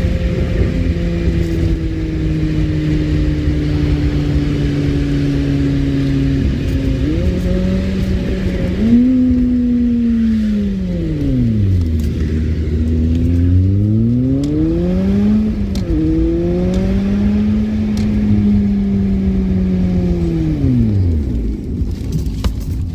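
Car engine heard from inside the cabin while driving. Its pitch holds nearly steady at first, then falls and rises in several long smooth sweeps as the car slows down and speeds up again.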